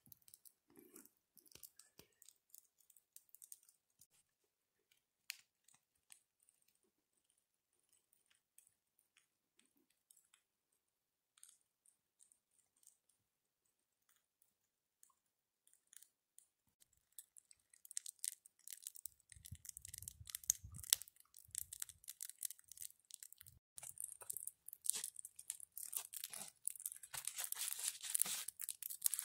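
Small campfire of dry sticks crackling and popping, sparse and faint at first, then dense and loudest over the last few seconds. A brief low rumble about two-thirds of the way through.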